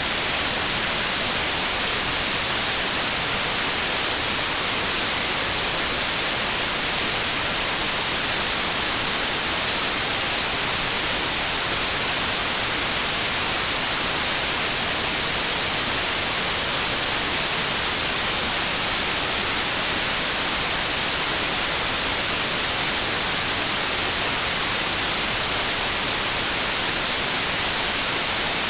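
Steady synthetic white noise: an even, unbroken hiss, strongest in the high frequencies, with no change in level.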